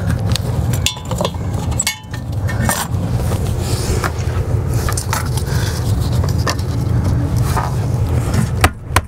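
A steady low hum runs throughout, with scattered clicks and knocks from the toilet's parts being handled during reassembly. Near the end the hum drops and a run of sharp, evenly spaced knocks begins.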